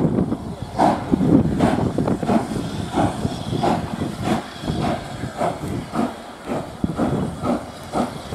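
Steam locomotive pulling away, its exhaust chuffing in regular beats of about two a second that gradually quicken as it gathers speed.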